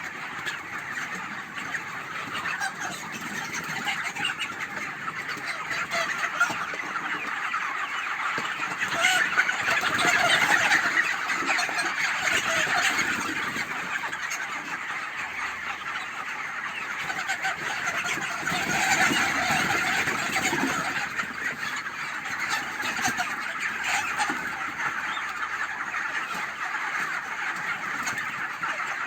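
A large flock of chickens clucking and chirping continuously in a dense chatter that swells louder about a third of the way in and again about two-thirds of the way in.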